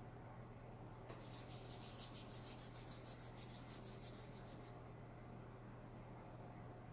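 Palms rubbing quickly back and forth against each other, a fast even run of dry swishing strokes starting about a second in and stopping a little over a second before the end. It is faint.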